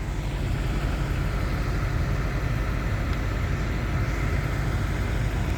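A steady low engine rumble, constant throughout.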